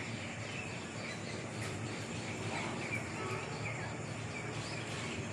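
Steady outdoor background hiss with short bird chirps scattered through it.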